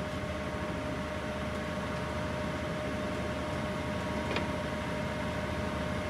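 TOS BU28 universal cylindrical grinder running, a steady machine hum with a constant tone, as the work-head speed is switched. A single sharp click about four seconds in, from the work-head speed selector.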